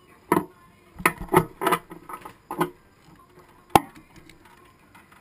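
Key being handled and pushed into the Kawasaki ZX-10R's ignition lock. It makes a run of knocks and rattles over the first three seconds, then one sharp metallic click nearly four seconds in. The engine is not yet running.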